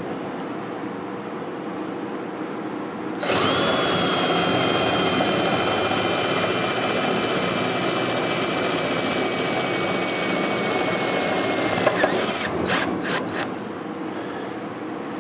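Power drill driving a self-tapping sheet metal screw into the sheet-steel floor panel: the motor starts about three seconds in and runs with a steady whine, its pitch sagging slightly as the screw bites, for about nine seconds. It then stops, followed by a few quick clicks.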